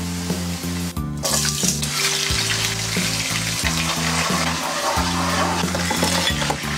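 Hot oil sizzling and crackling in a frying pan: first pork ribs deep-frying, then, after a short break about a second in, dried chilies and aromatics frying in oil.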